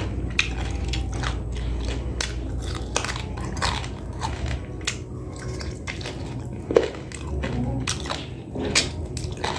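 A person chewing and biting cooked chicken, with irregular small crunches and clicks as the meat is worked off soft bones.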